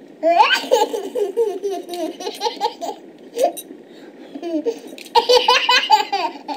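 A baby laughing hard in two long bouts of high, rapid belly laughs, with a quieter pause in the middle that holds a couple of short clicks.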